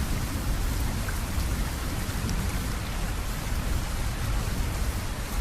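Steady rain falling: an even hiss with a deep low rumble underneath.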